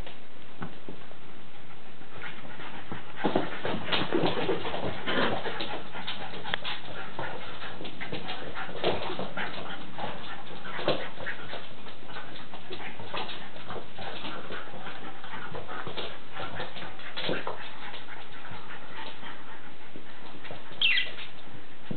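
Dogs play-fighting: scuffling with many short clicks and knocks, and dog whimpering. Near the end, one short high yelp falls in pitch.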